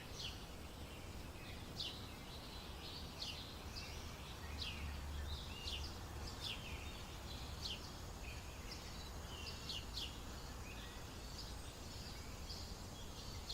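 Small birds calling: short, high chirps that drop quickly in pitch, repeated about once a second, over a steady low background rumble.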